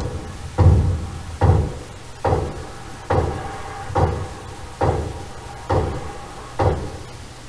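Hatchet head striking a new timber floor joist, knocking it into place: steady blows, a little under one a second, about nine in all.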